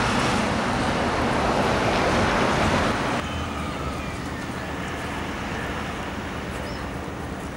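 Road traffic noise, a steady rush with no clear tones, that drops sharply in level about three seconds in and leaves a quieter background hum.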